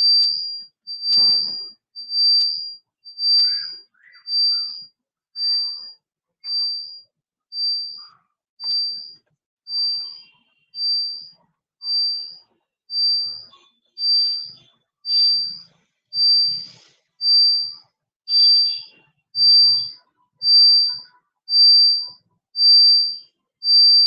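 A single high-pitched electronic beep repeating steadily about once a second. It grows a little quieter in the middle and louder again toward the end.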